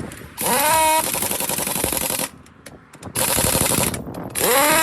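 Pneumatic impact wrench run in bursts of rapid hammering, each burst opening with the air motor's rising whine. There are two long bursts and a short one between them, with a pause about halfway through.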